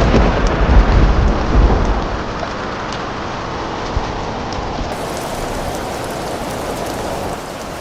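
Steady rain falling, with a low rumble of thunder over the first two seconds that dies away, leaving the even hiss of the rain.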